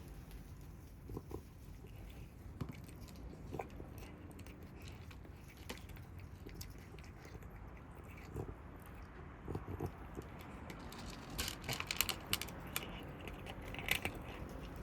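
Kittens chewing and crunching food, with scattered small crisp clicks. A denser run of louder crunches comes about eleven seconds in and again near the end.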